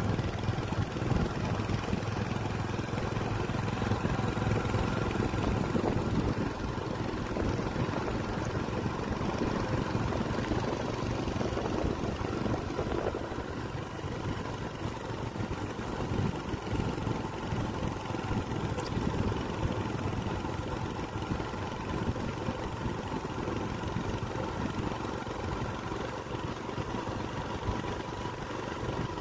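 Steady engine and road noise of a moving motor vehicle, heard from on board.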